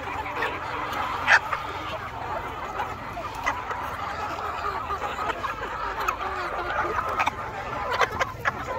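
A large flock of hens clucking and chattering together, a continuous overlapping din, with short sharp sounds scattered through it, the loudest a little over a second in.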